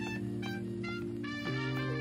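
Background music: a melody over sustained chords, with the chord changing about one and a half seconds in.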